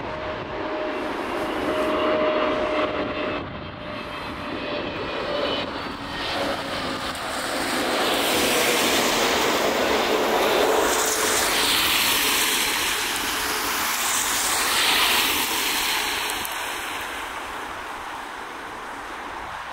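Twin jet engines of an Airbus A320neo-family airliner on low approach, gear down. A steady whine slides slightly lower in pitch, then swells into a loud rushing noise as the jet passes overhead, and fades near the end.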